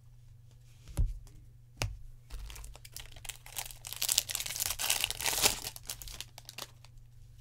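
Foil wrapper of a pack of baseball trading cards crinkling and tearing as it is pulled open, a dense crackling rustle of about four seconds that is loudest near the middle. Two sharp taps come before it, about one and two seconds in.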